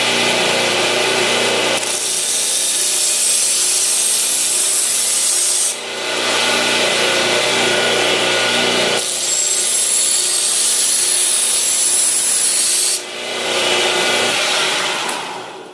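A 1x30 belt sander running with a knife blade held against the belt to put an edge on it: a steady motor hum under a loud grinding hiss. The grinding changes in tone every few seconds as the blade is shifted, with brief dips, and fades out near the end.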